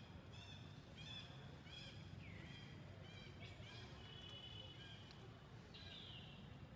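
Baby monkey crying: a run of short, high-pitched squeaky calls, one or two a second, some sliding down in pitch and one held longer, faint over a low background hiss.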